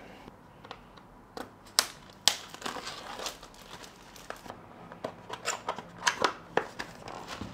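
Rustling and crinkling of a paperboard product box and its plastic wrapping as hands handle and open it, with scattered sharp taps and clicks of the card.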